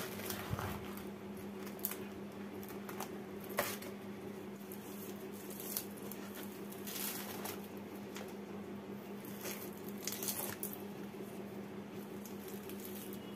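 Hands peeling a ripe palmyra palm fruit: scattered soft tearing and pulling sounds as the skin and fibrous pulp are ripped away, over a steady low hum.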